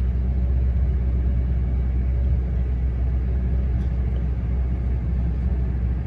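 Ford 6.8-litre V10 of a Super Duty truck idling in park, heard from inside the cab: a steady low rumble. The cylinder 3 misfire has been cured by swapping the ignition coil.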